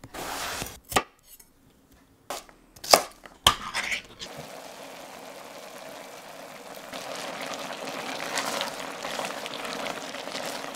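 Chef's knife cutting through an aubergine on a wooden chopping board, with a few sharp knocks of the blade on the board in the first four seconds. Then a steady hiss from the cooking pot, a little louder from about seven seconds in.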